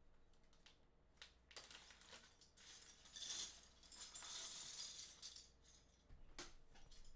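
Faint handling of small hard objects: scattered light clicks, a rattling clatter lasting about two seconds in the middle, and one sharper click near the end.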